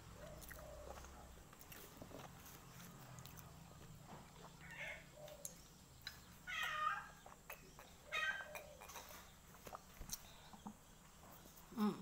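A cat meowing three times, short high calls a second or two apart.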